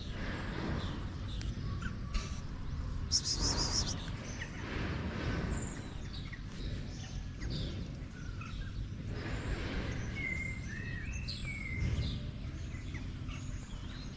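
Small birds chirping in short, scattered calls over steady outdoor background noise, with a brief high trill about three seconds in.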